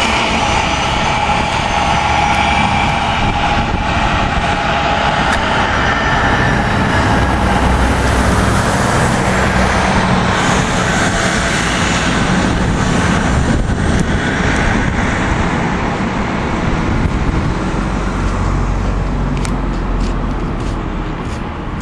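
Steady motor-vehicle road noise, with engines and tyres running continuously, easing slightly in the last few seconds.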